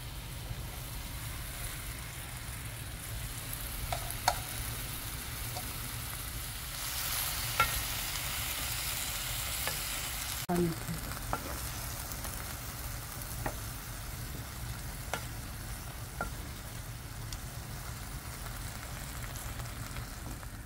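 Sliced lotus root sizzling in soy sauce and sugar in a wok as it braises, stirred with a spatula that clicks against the pan now and then. The sizzle grows louder for a few seconds in the middle.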